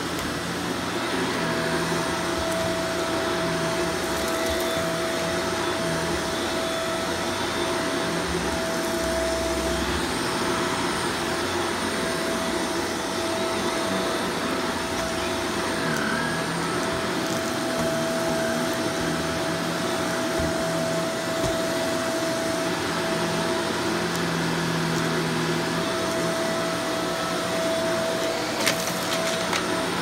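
Shark upright vacuum cleaner running, its motor giving a steady whine over continuous suction noise as it is pushed over carpet and then hard floor. A brief click near the end.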